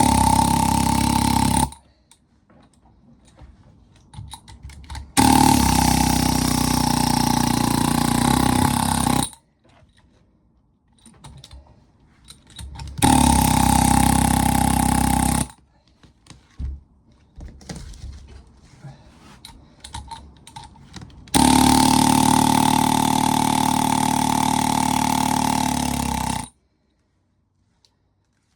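Pneumatic air hammer firing in four bursts, each a loud rapid buzzing hammer, the longest about five seconds, with light knocks and clatter in the pauses between.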